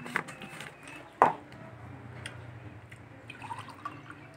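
A drink being poured and dripping into a glass, with one sharp tap about a second in and a few lighter clicks later. A low steady hum runs underneath.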